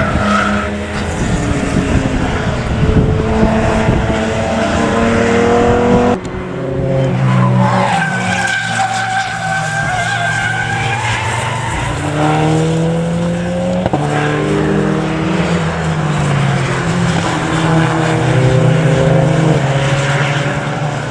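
Racing car engines revving hard as the cars pass, their notes climbing and dropping back at each gear change, with tyre squeal and skidding.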